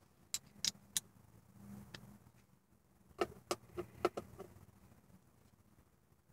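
Light clicks and clinks of a screwdriver and its bits being handled: three sharp clicks in the first second, then a quick run of them around three to four seconds in.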